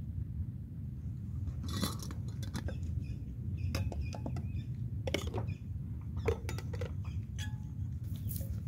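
Metal camping cookware clinking and knocking: a kettle, its lid and a cup handled and set down, in a string of irregular light clinks. Under it runs a steady low rumble.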